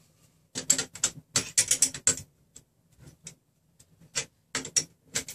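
Wrench working the nuts on the threaded-rod frame of a RepRap Prusa Mendel 3D printer: a quick run of sharp metal clicks and clinks in the first couple of seconds, then scattered single clicks.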